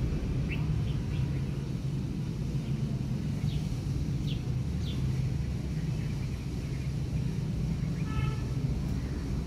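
Steady low outdoor rumble, with a few short high chirps scattered through the first half. About eight seconds in comes one brief mew from a newborn kitten.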